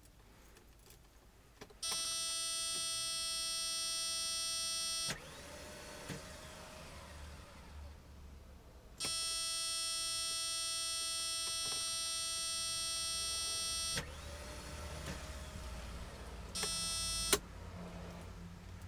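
A car that won't start: a steady electrical buzz at one fixed pitch comes on for about three seconds, again for about five seconds, and briefly near the end, each time cutting off suddenly. Between the buzzes is a quieter low whir, with a faint rising motor whine just after each buzz stops.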